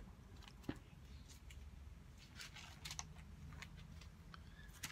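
Faint handling noises: a scatter of soft clicks and rustles from a Bible being reached for and picked up, with a sharper click under a second in, over a low steady room hum.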